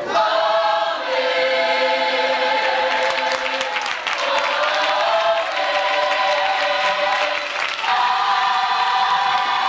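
Gospel youth choir singing together in long held chords, the harmony shifting to a new chord every few seconds.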